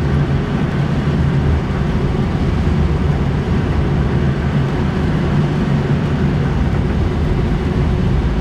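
Steady rush and rumble of airflow around a glider's canopy, heard inside the cockpit as the glider circles in a thermal.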